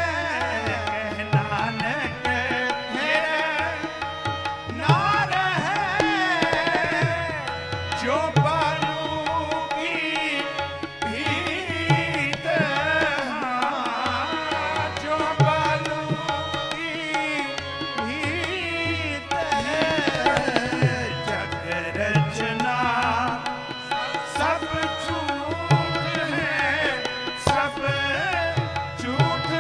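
Harmonium and tabla playing Sikh shabad kirtan, the harmonium sustaining a melody over steady tabla strokes.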